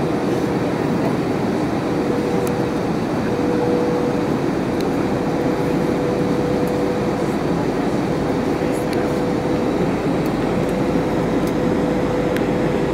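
Steady cabin noise inside an Airbus A321 on approach with flaps and slats extended: the even rush of engines and airflow, with a steady hum running under it.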